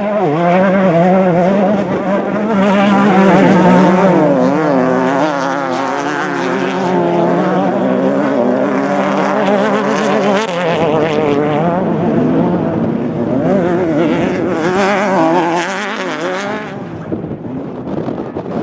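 Off-road desert race vehicles' engines running hard, several at once, their pitch rising and falling as they rev and pass. Loudest about three to four seconds in, easing off near the end.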